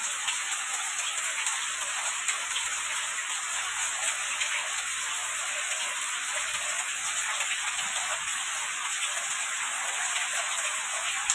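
Steady rain falling: an even, dense hiss with individual drops ticking through it.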